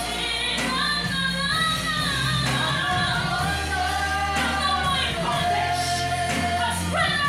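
Gospel worship song: voices singing a held, flowing melody over instrumental backing with sustained bass notes.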